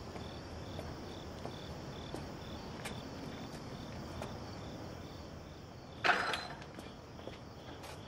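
Crickets chirping steadily at night, a short chirp about twice a second over a continuous high insect trill. About six seconds in comes a brief, sharp clatter as the wooden picket gate is opened.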